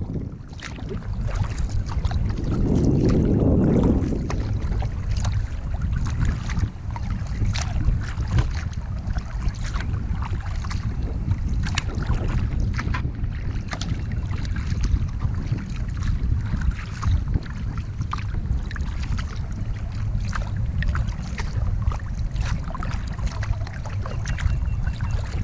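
Wind rumbling on the microphone, with a stronger gust about two to four seconds in, over irregular small splashes and drips of water around a kayak on a lake.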